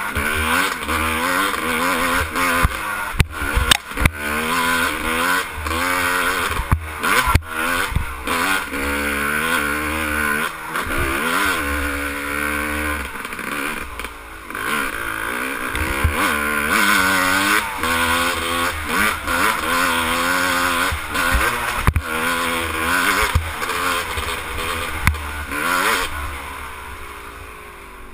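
Yamaha YZ250 dirt bike engine revving up and down repeatedly as it is ridden, with a few sharp knocks now and then. Near the end the engine note drops and quietens.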